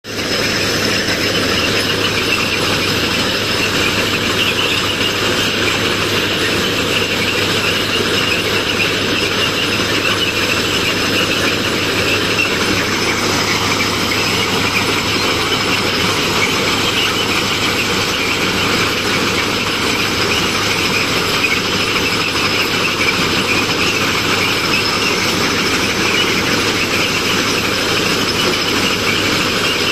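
Railway ballast cleaning machine at work: its engine running while the excavating unit drags ballast stones out from under the track, a steady, loud, unbroken mechanical din.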